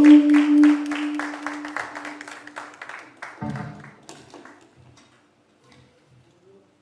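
A held note from the band's amplified instruments rings out and dies away over about three seconds, under scattered clapping from a small audience. A dull thump comes about three and a half seconds in, then it goes nearly silent.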